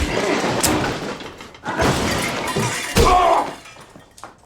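A television fistfight's soundtrack: heavy thuds and crashes as bodies and objects hit, three hard impacts with crashing noise between them. A short shout or grunt comes about three seconds in.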